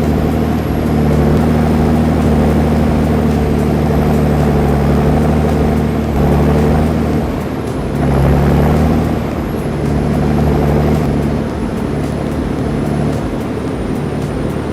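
Large stump grinder's diesel engine running hard as it grinds a stump. Its note shifts in pitch and level several times.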